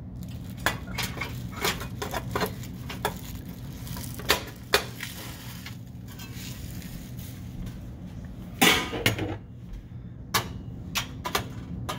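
Scattered metal clicks and clanks of a GE electric stove's coil burner element being handled and set into its chrome drip pan, with one louder clank about two-thirds of the way through.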